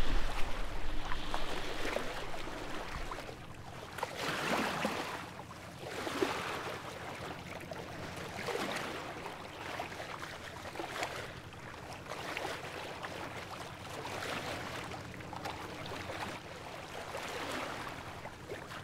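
Water rushing along a sailing yacht's hull while it motors, swelling and easing every couple of seconds. A faint steady engine hum runs underneath.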